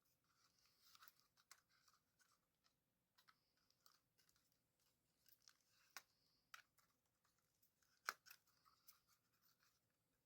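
Faint, scattered clicks and scratching of a small drone's plastic arm and metal hinge parts being handled and fitted, with a sharper click about eight seconds in.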